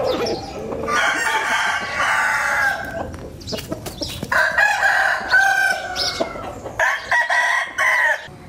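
Gamecock roosters crowing: three long crows one after another.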